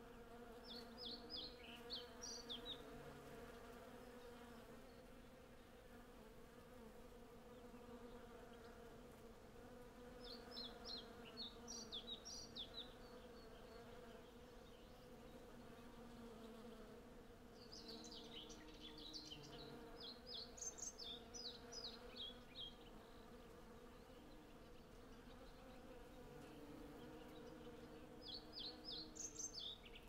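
Hundreds of honey bees foraging on a blossoming cherry tree, their wings making a steady, many-layered hum. A songbird sings short twittering phrases four times over it.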